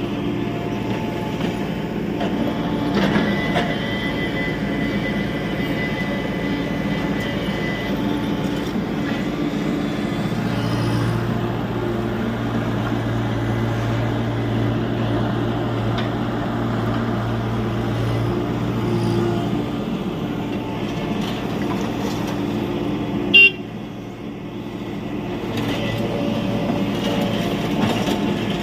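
Diesel engine of a Tata Hitachi EX70 Super Plus excavator running steadily as the machine works. A thin high tone holds for about five seconds near the start, and there is a single sharp bang about 23 seconds in, after which the engine sound briefly drops.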